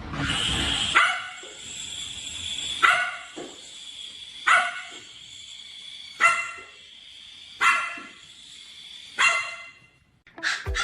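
A dog barking six times, roughly one bark every second and a half, each bark starting suddenly and dying away quickly. The first bark follows a second of low rumbling noise.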